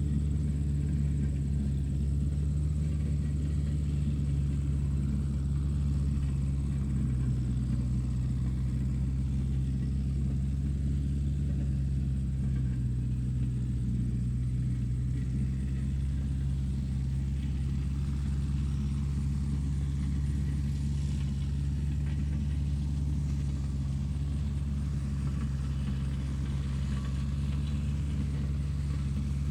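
Steady low engine rumble that holds an even pitch and level throughout.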